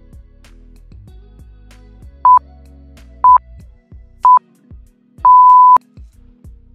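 Countdown timer beeping: three short beeps a second apart, then one longer beep, marking the end of the exercise interval. Quiet background music with a steady beat plays underneath.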